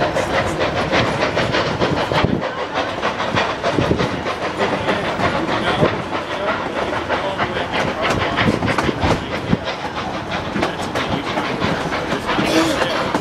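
Narrow-gauge passenger train rolling along, its wheels clicking quickly and steadily over the rail joints under a constant rumble, heard from an open-sided car.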